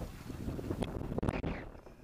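Wind buffeting the microphone, an uneven low rumble, with a few light clicks and knocks a little under a second in and again around a second and a half in.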